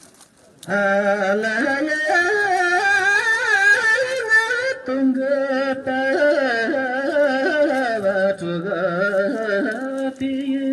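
Solo voice singing a Tibetan song into a handheld microphone. It comes in after a brief pause under a second in, then moves between long held notes and quick wavering ornaments.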